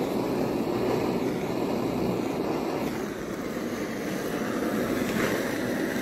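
Handheld gas blowtorch burning, a steady rushing noise of the flame that holds even throughout.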